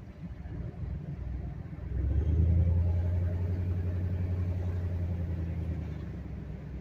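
Engine and road rumble of a moving vehicle, heard from inside the cab: a steady low hum that grows louder about two seconds in, then eases off slightly.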